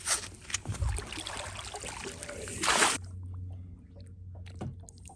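Water splashing and sloshing as a large hooked trout thrashes at the surface beside the boat, with a loud burst of splashing just before three seconds in. Then the sound drops to a quieter, steady low hum.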